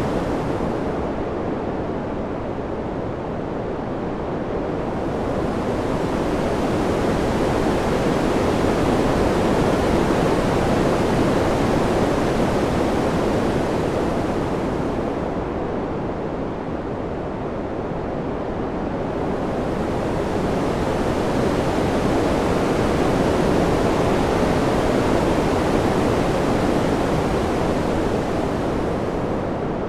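Ambient wind sound: a steady rushing noise that slowly swells and fades, growing brighter and hissier at each swell and duller at each lull, about twice in the span.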